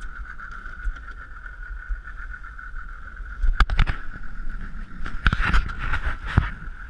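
Small outboard motor running at idle with a steady high whine, over low wind and water noise. Sharp knocks and thumps about three and a half seconds in, and a cluster of them from about five to six and a half seconds in.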